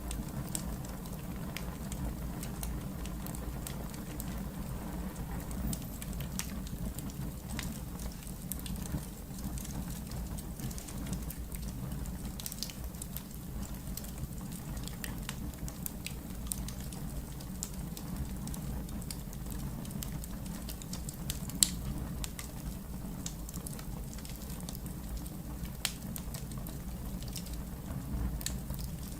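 Wood fire burning in a fireplace: irregular crackles and pops over a steady low rumble, with one louder pop about three-quarters of the way through.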